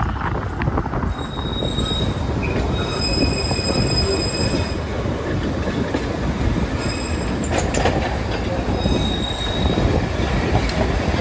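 Darjeeling Himalayan Railway toy train running over a steady rumble, its wheels squealing on the rails in high-pitched tones that come and go, several pitches at once, from about a second in.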